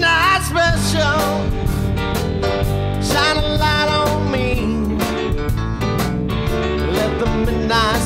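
Band music: drums and bass under an electric guitar lead with bending notes, an instrumental stretch between sung lines.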